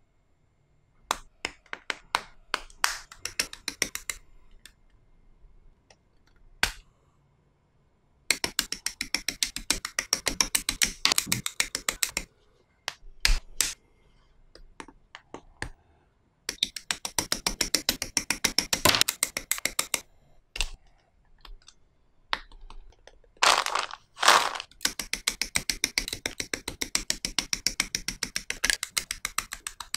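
Small plastic model-kit parts handled and worked close up: three runs of rapid, evenly spaced plastic clicking a few seconds each, with scattered single clicks and a couple of louder snaps between them.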